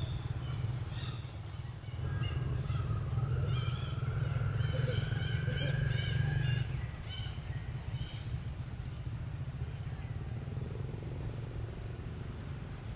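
Low rumble of a motor vehicle engine running in the background, with a faint rising whine, dropping away about six and a half seconds in. Short high chirps repeat over it in the middle.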